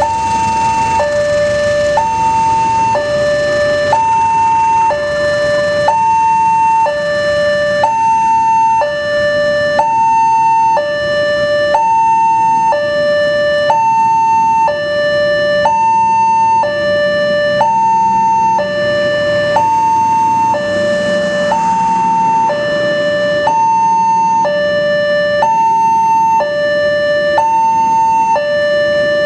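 Railway level-crossing warning alarm sounding a steady two-tone pattern, switching between a higher and a lower tone about once a second.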